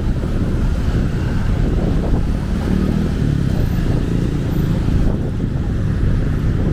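Busy city street traffic: motorcycles and cars running past in a steady, dense low rumble, with one engine tone standing out briefly around the middle.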